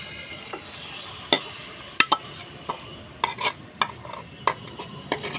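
Marinated chicken sizzling as it drops into hot oil in a frying pan, with a steady hiss. A metal spoon scrapes it off a china plate, giving about ten sharp clinks and taps against the plate and pan.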